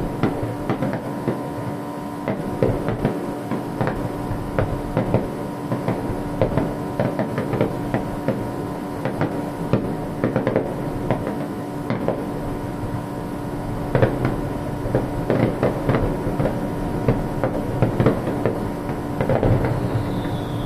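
Fireworks crackling and popping in rapid, irregular clusters over a steady hum, with a short whistle sliding down in pitch near the end.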